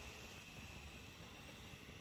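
Near silence: a faint steady hiss with a thin, steady high whine.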